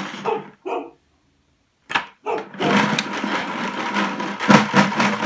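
Markers rattling and clattering inside an orange five-gallon plastic bucket as it is shaken to mix them. The rattling stops for about a second, then starts again and runs on longer.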